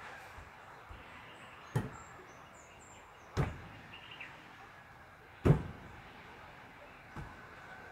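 Four sharp knocks a second or two apart, the loudest about five and a half seconds in, over a faint steady hiss, with a few faint bird chirps between them.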